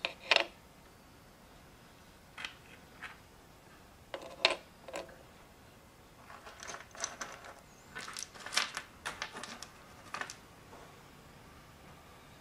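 Tiny Re-Ment miniature kitchen pieces (a toy pot, colander, bottles and plastic food) clicking and tapping as they are set into a toy sink and picked out of a pile. There are a few sharp single clicks in the first five seconds, then a busier run of small clicks and clatter from about six to ten seconds in.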